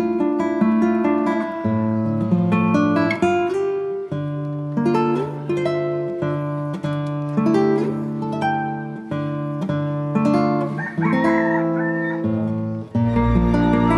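Background music led by plucked acoustic guitar picking a melody; a deeper bass comes in about a second before the end.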